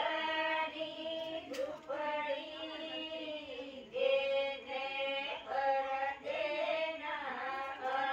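Group of women singing a Rathva wedding song (lagna geet) unaccompanied, in long drawn-out phrases with short breaks between them.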